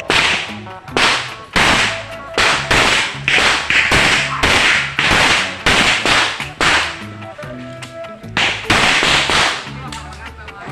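A rapid string of pistol shots during a timed practical-shooting stage, roughly one every half second. There is a pause of about a second and a half, about seven seconds in, before the shooting resumes.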